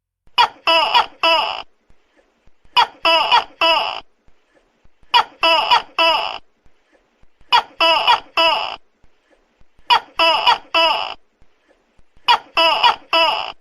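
Tokay gecko calling loudly: groups of four short, harsh calls, repeated about every two and a half seconds, six groups in all.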